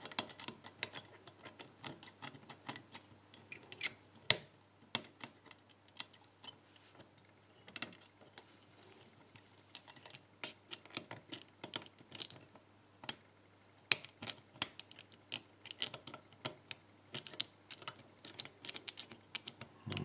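A lock pick and tension tool working the levers inside a seven-lever brass Krishna padlock: a string of small, irregular metallic clicks and scrapes, with a few louder ticks among them.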